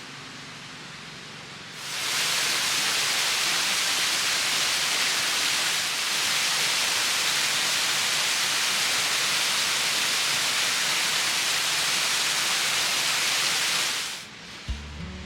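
A loud, steady rushing hiss with no tone to it. It starts abruptly about two seconds in and cuts off near the end, where music begins.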